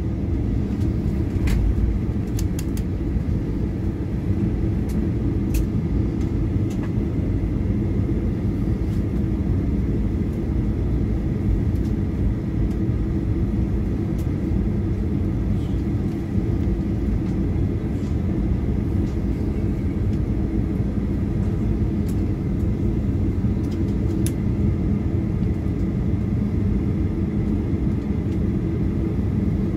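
Cabin noise inside a Boeing 737-800 taxiing after landing: a steady low rumble from its CFM56 turbofans at taxi power and the wheels rolling, with a faint steady whine and a few small clicks.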